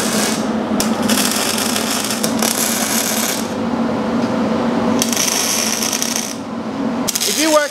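MIG welding arc crackling and sizzling in several runs, stopping for over a second in the middle, over a steady hum.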